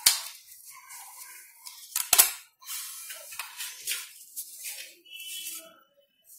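Homemade capacitor-bank spot welder discharging through a nail at the electrode tip: a sharp snap at the start and a double snap about two seconds in. These are followed by the scraping and rattling of the welded nails being handled.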